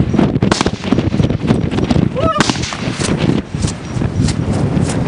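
AR-style rifle shots, several sharp cracks at irregular spacing, the loudest about two and a half seconds in, over a steady low rumble.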